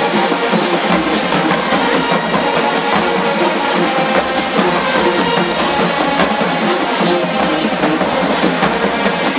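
HBCU marching band playing loudly, drums driving a steady beat under the band.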